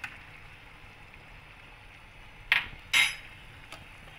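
Metal ladle and stainless steel lid clinking against a stainless steel soup pot: two sharp clinks about half a second apart, near the end, the second ringing briefly.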